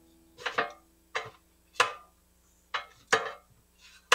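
Kitchen tongs clicking and tapping against an air fryer basket while donuts are turned over: about eight sharp clicks at uneven spacing, some in quick pairs.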